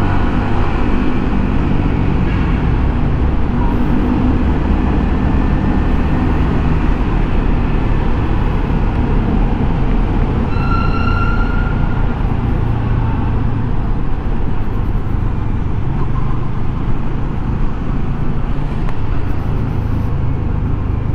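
Steady wind and road rush heard from a microphone inside a closed motorcycle helmet, with the Yamaha XSR155's small single-cylinder engine running low underneath while riding in traffic. About ten seconds in, a short high-pitched tone sounds above it for a second or so.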